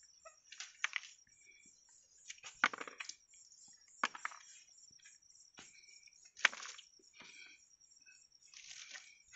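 A few sharp clicks and knocks from handling kitchen things, the loudest about two and a half seconds in and again about six and a half seconds in, over a steady high-pitched insect trill.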